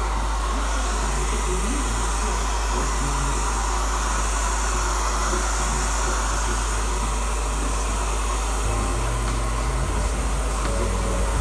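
Handheld hair dryer running steadily: a loud, continuous rush of air as thick natural afro hair is blow-dried.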